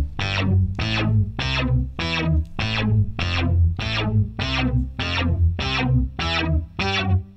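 DIY Arduino synthesizer playing a repeating sequence of short notes, about two a second, through a chain of guitar effects pedals; each note starts bright and quickly darkens. About halfway through, the chorus pedal is switched into the chain.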